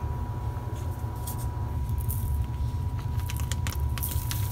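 Clear plastic zip-top bag of cut hot dog chunks being handled and squeezed, with a few short crinkles and clicks, over a steady low hum.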